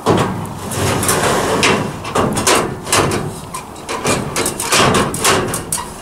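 Aluminium extension ladder being handled and positioned, its metal sections and rungs clanking and scraping in a run of irregular knocks, the loudest right at the start.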